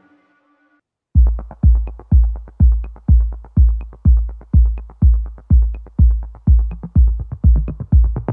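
Electronic dance music backing track: after a fade-out and a brief gap, a drum-machine kick starts about a second in and keeps a steady beat of about two a second, with a light tick on every other beat.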